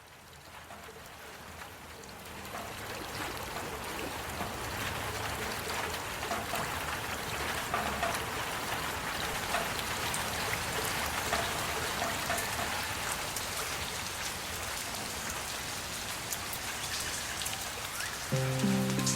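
Steady water noise, a hiss studded with many small droplet clicks, fading in over the first few seconds. Music with steady pitched tones comes in near the end.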